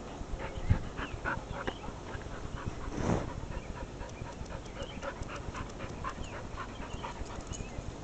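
A dog panting close to the microphone in short, quick breaths, with two louder thumps, one under a second in and one about three seconds in.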